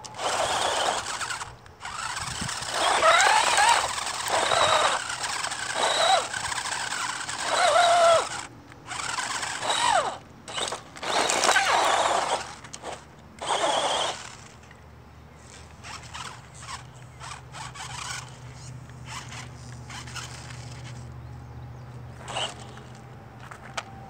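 Electric motors of two 1/16-scale RC cars whining in bursts, their pitch rising and falling as they are throttled, with tyres spinning and scrubbing on rough asphalt while the cars pull against each other on a chain. About fourteen seconds in the sound drops to a quiet steady hum with a few faint ticks.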